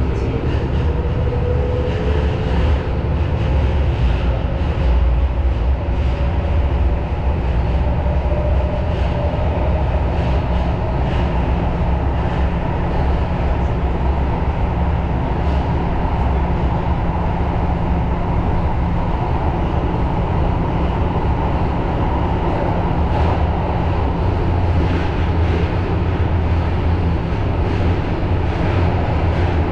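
Tokyo Metro Marunouchi Line subway train running through a tunnel, heard from inside the front car: a steady, loud rumble of wheels on rail, with a faint motor whine that rises slightly in pitch over the first several seconds.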